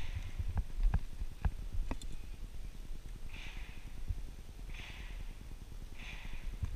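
An archer breathing slowly close to a head-mounted microphone, three soft breaths about a second and a half apart, over a low rumble. In the first two seconds there are a few light clicks from handling the compound bow and nocking the arrow.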